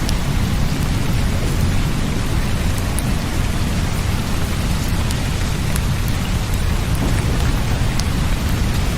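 Steady heavy rain, an even hiss with a deep continuous rumble underneath and a few sharp drop ticks scattered through it.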